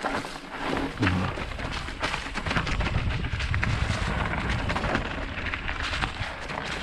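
Mountain bike rolling over a dirt and rock trail: a steady crunch of tyres with many small irregular rattles and knocks, and wind rumbling on the microphone.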